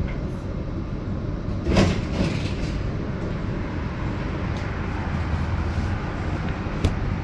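GT6NU low-floor tram running on rails, heard from on board: a steady low rumble of wheels and running gear, with a louder clatter about two seconds in and a few light clicks near the end.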